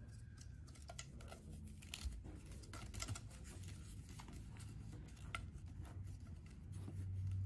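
Faint, scattered clicks and rustles of a taped bundle of plastic drinking straws being handled and bent apart at the top, over a low steady hum.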